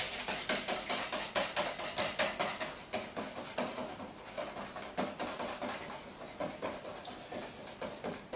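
Wire whisk beating pancake batter by hand in a plastic bowl: a quick, steady run of strokes, several a second, the wires clicking against the bowl.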